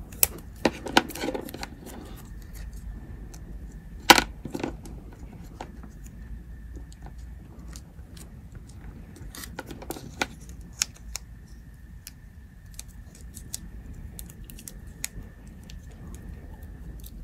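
Black electrical tape being pulled off the roll and wrapped around a pack of AAA NiMH cells to insulate it, with scattered small clicks and taps from handling the cells and tape roll. A sharp click about four seconds in is the loudest.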